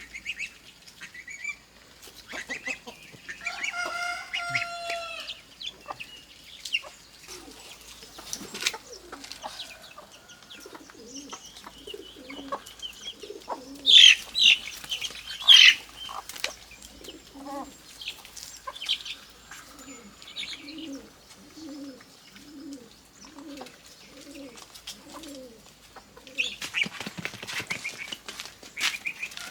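Chickens clucking and calling, with a drawn-out call about four seconds in, a few loud sharp squawks around the middle, and a run of steady low clucks later on.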